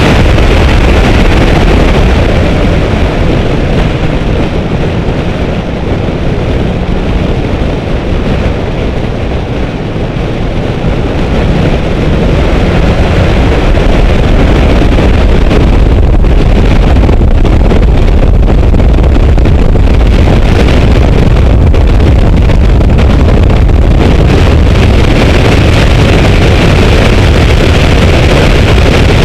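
Car driven at speed on track: engine noise and wind rushing over an outside-mounted camera microphone. The loudness eases for several seconds a few seconds in, then rises back to full and holds.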